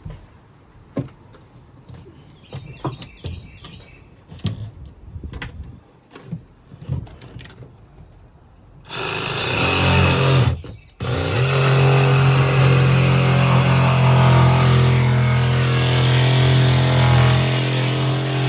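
A few light knocks and clicks with birds chirping, then about nine seconds in a jigsaw starts, stops briefly and restarts, running steadily as it cuts into the boat's floor.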